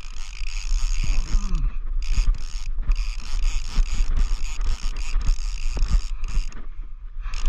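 Penn Squall baitcasting reel being cranked, a steady mechanical whir of its gears that stops briefly a few times between turns, over a low steady rumble.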